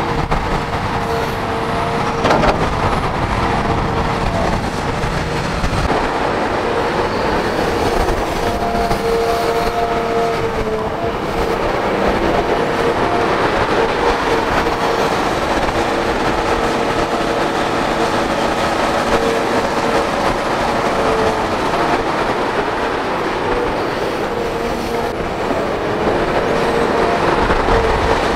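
Hitachi Zaxis 350H crawler excavator working under load, its diesel engine and hydraulics running steadily with a whine that comes and goes. A sharp knock about two seconds in.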